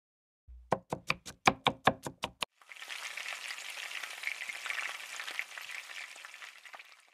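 A kitchen knife chops quickly on a cutting board, about nine strokes. Then food sizzles and crackles as it fries in a pan, fading out near the end.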